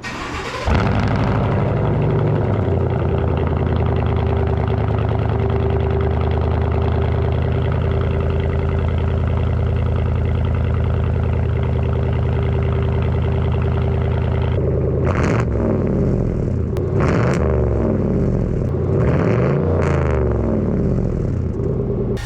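Chevy Silverado pickup's engine idling steadily, then revved several times in quick rising and falling sweeps during the last third.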